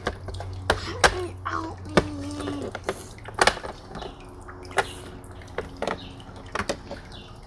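Scattered light clicks and taps of toy animal figures being handled and set down, about nine in all, over a faint steady hum.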